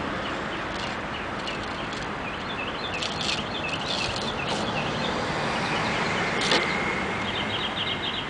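Steady outdoor traffic noise from a parking lot, with a few light clicks and taps and one sharper click about six and a half seconds in.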